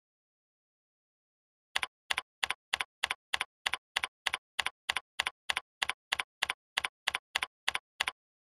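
Computer keyboard keystrokes typed at an even pace of about three a second, each a click with a press and a release. They start just under two seconds in and stop about eight seconds in.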